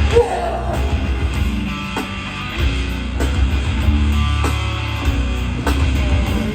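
Hardcore band playing live: loud distorted electric guitars, bass and pounding drums.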